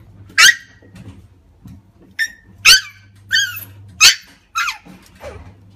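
Shiba Inu puppy giving a run of short, high-pitched yips, about seven in all, several of them sliding down in pitch.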